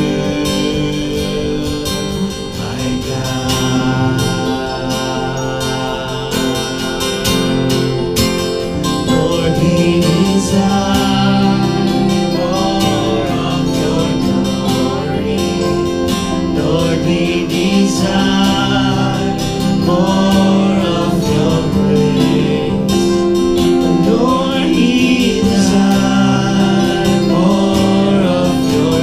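Gospel worship song: voices singing over instrumental accompaniment with a steady bass line.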